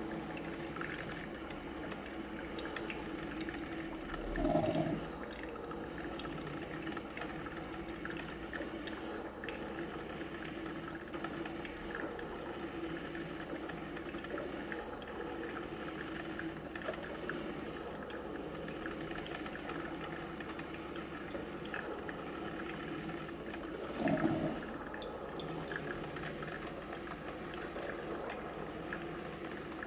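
Pensonic electric coffee maker brewing: a steady sound of heating water bubbling and gurgling, twice briefly louder.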